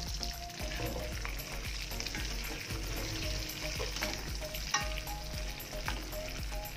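Smoked beef and sambal matah sizzling steadily in hot oil in a wok, stirred by a spatula that scrapes the pan, with a sharp clink a little over two thirds of the way in.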